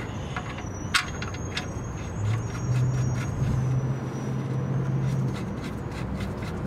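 Oil drain plug being threaded back into a 2001 Ford Mustang's oil pan by hand: small metal clicks and scrapes, the sharpest about a second in. A low steady hum runs for about three seconds in the middle.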